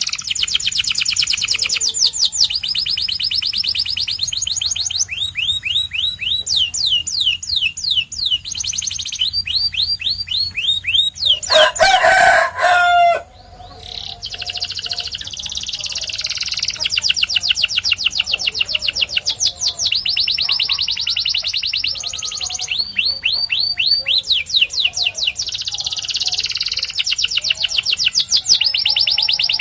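Canary singing long, fast trills of rapidly repeated notes, one tour after another. About twelve seconds in, a louder, lower-pitched call of roughly a second and a half cuts across the song. The singing breaks off briefly, then resumes.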